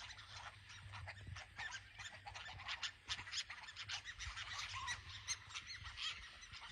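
A busy chorus of short, high-pitched animal squeaks and chirps, many overlapping and coming several times a second, over a low steady rumble.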